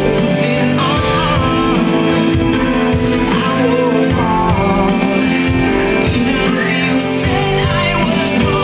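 Pop song with a singer's voice over guitar, bass and a steady beat, played as the backing track for a dance performance.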